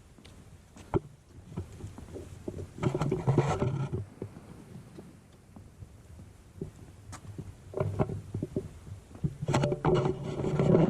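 Footsteps on a hiking trail, short irregular steps, with two louder spells of rumbling noise on the microphone, about three seconds in and again near the end.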